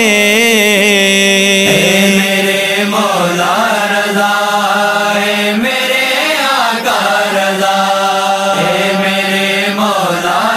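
Devotional vocal music: wordless singing in long, gliding, ornamented notes over a steady drone, between sung verses of a manqabat.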